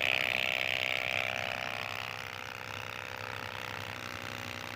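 Electric water pump running with a steady mechanical whir, getting quieter over the first two seconds and then holding steady.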